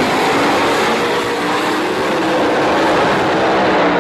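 Two Top Doorslammer drag cars at full throttle down the strip: a loud, continuous engine noise whose pitch rises as they accelerate.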